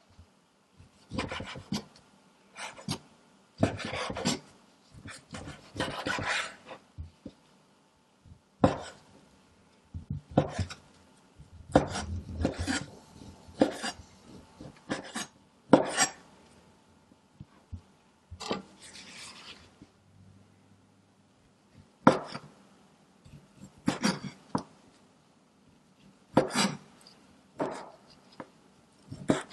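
Chef's knife slicing sausages on a wooden cutting board: irregular knocks as the blade hits the board, some in quick runs, with the rub of the blade through the meat.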